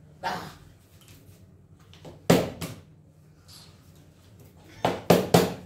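Partly filled plastic water bottle knocking on a wooden table in a bottle flip: a hard knock with a quick rebound about two seconds in, then three quick knocks near the end as it hits and tips over.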